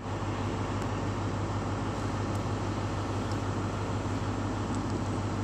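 Diesel engine of an InterCity 125 (Class 43 HST) power car idling with the train standing, a steady low hum.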